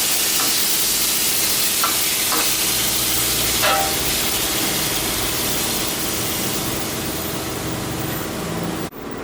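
Frying red curry paste and catfish sizzling in the pan just after water has been added, a steady hiss with a few light clicks in the first few seconds. The hiss eases off slowly and stops suddenly near the end.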